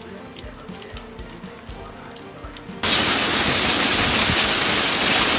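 Rain: scattered faint drop ticks at first, then about three seconds in a loud, steady hiss of heavy rain starts suddenly and holds.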